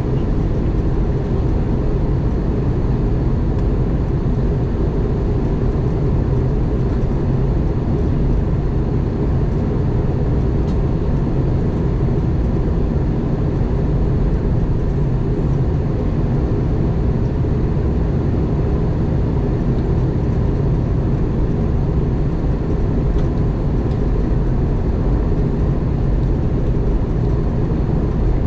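Steady cabin noise inside an Airbus A220 in flight: an even, low rush of its Pratt & Whitney PW1500G geared turbofans and the airflow, with a faint steady whine running through it.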